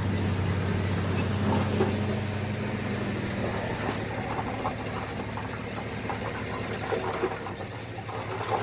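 Heavy construction machine's diesel engine running steadily, with scattered metallic clanks and knocks over it.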